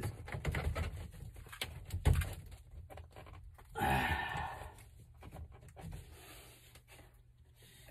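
PVC pipe and fittings being handled and pressed together during gluing: a run of light plastic clicks and knocks, with a louder rubbing, scraping sound about four seconds in.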